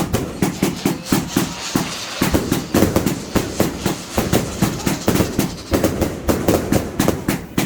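Fireworks going off in a rapid, continuous string of sharp bangs and crackles, several a second.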